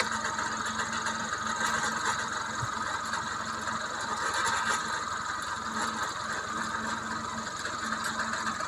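Backhoe loader's diesel engine idling steadily, with an even high hiss over it.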